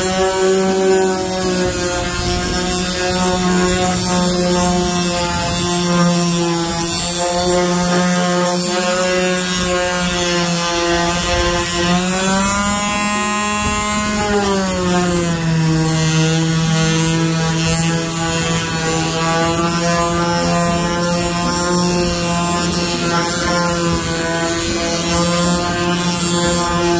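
Electric power sander running steadily on the RV roof, sanding it smooth. Its motor pitch rises briefly about halfway through, then settles slightly lower for the rest.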